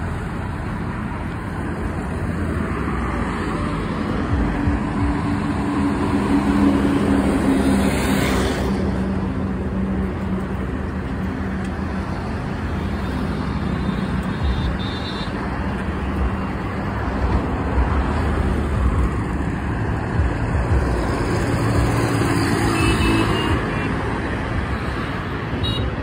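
Road traffic: engines and tyres of cars and motorbikes passing on the road, a steady hum with one louder vehicle going by about eight seconds in.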